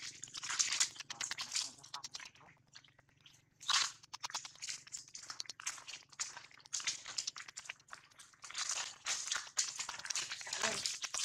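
Dry fallen leaves crunching and rustling underfoot in irregular clusters of crackles, as footsteps cross a leaf-strewn dirt path.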